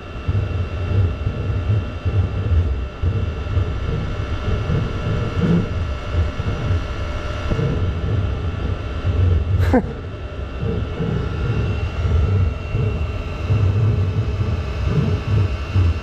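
Chinese diesel parking heater burning waste oil, running with a strange uneven rumbling hum that swells and fades, likened to a lightsaber fight inside it. A single falling whoosh comes about halfway through.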